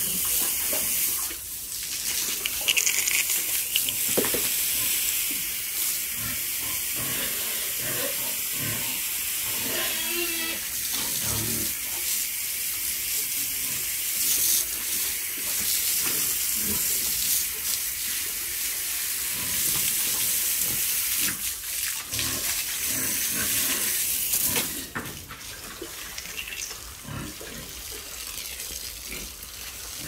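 Hose spraying a strong jet of water over pigs and a concrete pen floor: a steady hiss and splatter that stops about five seconds before the end.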